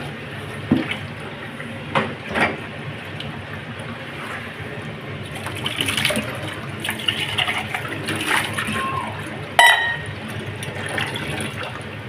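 Tap water running into a stainless-steel sink and over a steel pan, with a few sharp knocks of metal dishes being handled, the loudest late on.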